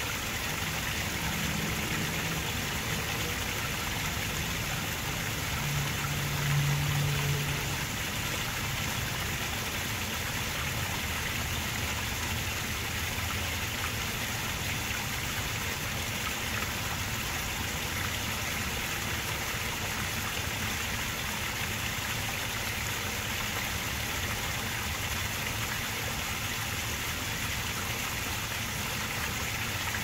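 Garden rock waterfall fountain: water spilling over a stone ledge into a small pool, a constant splashing rush. A low hum swells briefly about six seconds in.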